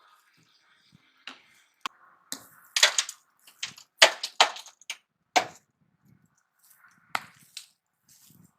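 Demolition work: a series of irregular sharp knocks and cracks, about a dozen, of hard material being struck or broken loose, with short quiet gaps between.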